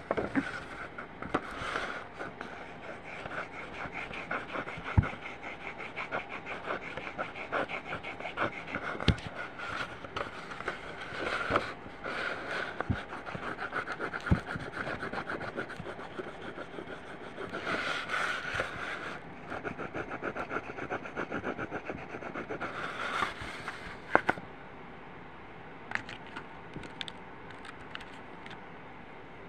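Oil pastel scribbling on paper in quick back-and-forth strokes, a dense scratchy rasp with brief pauses and a few sharp taps. It thins out to a few faint scratches for the last few seconds.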